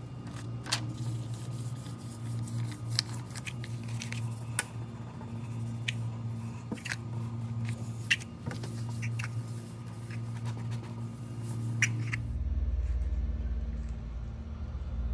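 Scattered light clicks and clinks of steel and zinc-plated hex nuts and washers rattling in a plastic compartment organizer as a hand handles it, over a steady low hum. About twelve seconds in the clicking stops and a deeper steady low rumble takes over.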